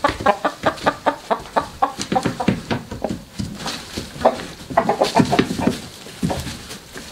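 Chickens clucking: many short, quick calls from several birds at once, densest in the first couple of seconds, a brief lull, then another run of calls before thinning out.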